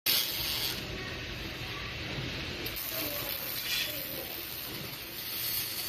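Automatic welding machine running: a steady mechanical clatter, with a high hiss that cuts in briefly at the start and again from about three seconds in until near the end.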